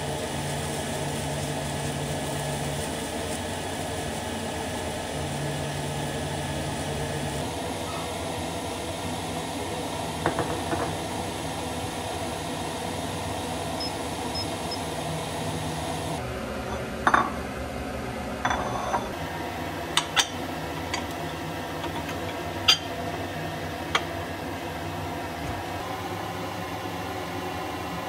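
Food frying in a pan with a steady sizzle. Several sharp clinks of utensils against dishes and the pan are scattered through the second half.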